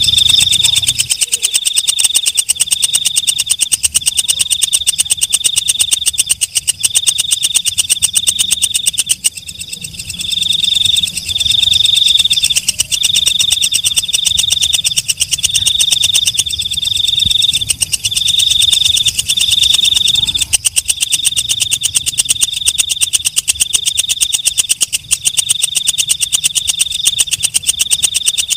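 Walang kecek, a green leaf-winged katydid, stridulating: a loud, shrill, rapidly pulsed chirp repeated about once a second without pause.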